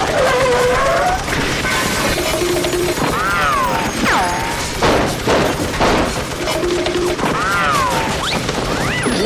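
Cartoon sound effects: wavering slide-whistle tones that rise and fall, twice, and a falling whistle about four seconds in. Underneath runs a dense, continuous clatter of crashes and shattering.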